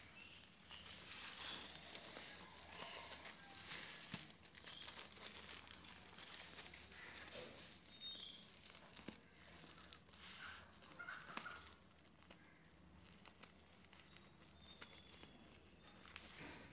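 Bubble wrap crinkling and rustling faintly under hands as a bubble-wrapped package is handled and its edge picked at, with scattered small crackles.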